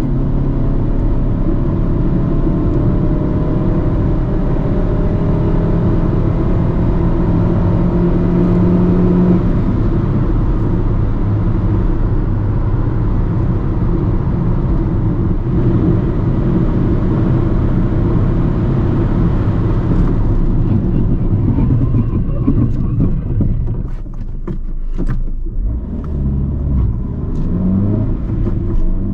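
Inside the cabin of a 2010 Fiat Panda 1.1 MPI with its 1108 cc four-cylinder petrol engine, accelerating hard with the engine note climbing. Then comes steady road and wind noise at speed, and about two-thirds of the way through an emergency stop, after which the road noise falls away to a low rumble with scattered clicks.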